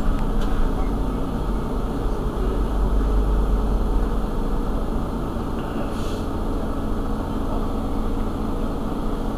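Mercedes-Benz Citaro G C2 articulated city bus idling at a standstill: a steady low engine hum.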